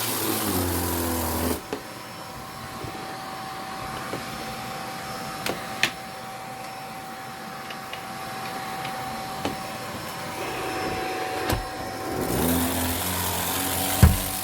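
Vacuum cleaner running. About a second and a half in, its loud running drops to a much quieter steady whine with a few sharp clicks. Near the end the full loud running comes back.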